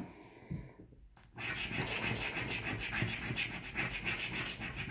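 Scratch-off lottery ticket having its coating scraped off in quick, closely spaced rasping strokes. The scratching starts about a second and a half in and keeps going steadily.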